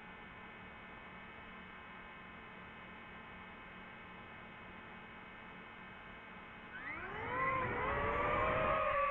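Faint steady hum, then about seven seconds in the DJI FPV drone's motors and propellers spin up with a rising, wavering whine that grows much louder and settles into a steady high whine as it takes off.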